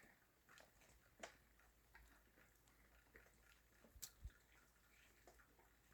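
Near silence, with a few faint short clicks about a second in and again twice around four seconds in.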